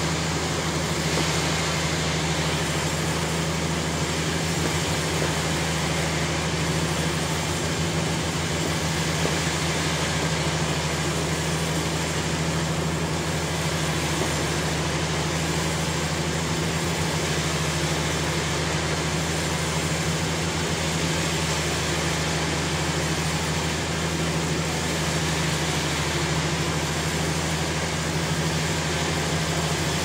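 Sawmill machinery running steadily, a constant engine hum with a wash of mechanical noise that neither starts nor stops.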